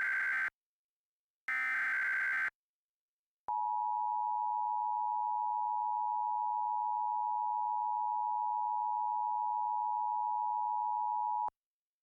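Emergency Alert System SAME header data: the end of one short screeching digital burst and then another a second later. About three and a half seconds in, the EAS two-tone attention signal (853 and 960 Hz) sounds steadily for about eight seconds and cuts off sharply. Together these announce the start of a new emergency alert message.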